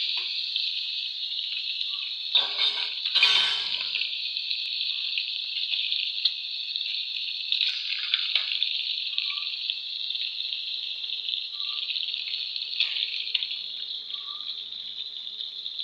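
Pieces of fish frying in hot oil in a pan, a steady sizzle, with two brief louder scrapes a couple of seconds in.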